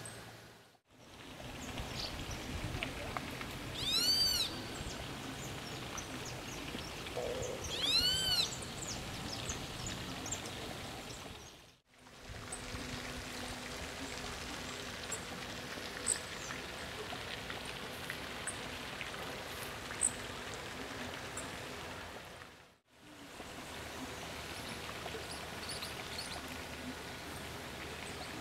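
Outdoor ambience: a steady background hush with scattered faint high chirps. A bird gives a loud call twice, each one rising then falling in pitch, about four seconds apart. The sound fades out and back in briefly three times.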